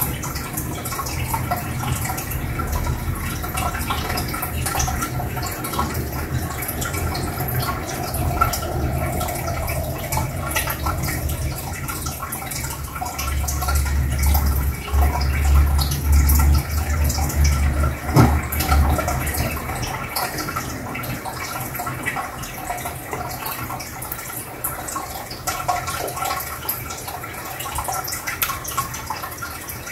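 Aquarium sponge filter bubbling, with air bubbles rising through the tank and breaking at the water surface in a steady trickle and patter. A low hum grows louder for several seconds midway, with a single click near its end.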